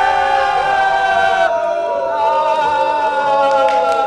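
Several voices singing long held notes together without instruments, like a choir chord, shifting pitch a few times.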